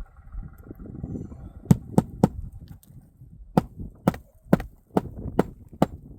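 Hammer driving roofing nails into shingles: three quick sharp strikes about two seconds in, then a steadier run of blows about every half second through the second half.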